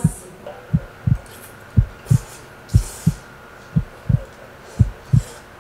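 Heartbeat sound effect: a low double thump, lub-dub, repeating about once a second.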